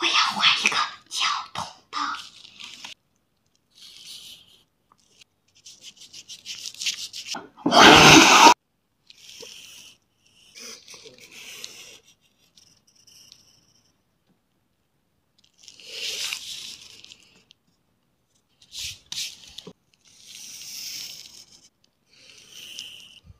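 Pencil lead scratching on paper in short strokes as straight lines are drawn along a plastic ruler, with a quick run of fine strokes about six seconds in. A loud rustle lasting about a second comes just after the run and is the loudest sound.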